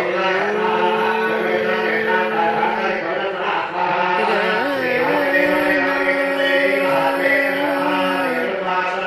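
Hindu devotional chanting: a voice holding long, drawn-out notes, stepping up to a higher held note about halfway through.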